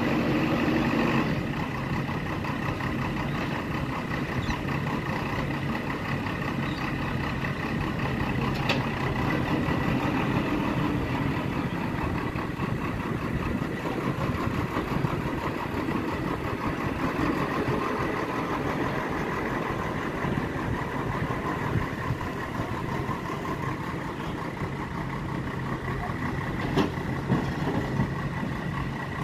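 Diesel engine of a JCB backhoe loader running steadily while the machine works. It is a little louder for about the first second, and there are a couple of brief clicks or knocks near the middle and near the end.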